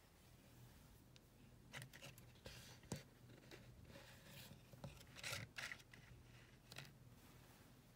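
Faint handling sounds: light rustling and scraping of a damp paper towel and a lidded container being moved about by hand, with a few soft clicks or taps, the sharpest about three seconds in.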